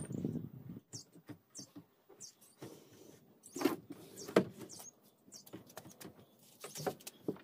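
Scattered knocks, taps and scrapes from handling and sliding a cabinet's sliding door panel, with the loudest knocks about three and a half and four and a half seconds in.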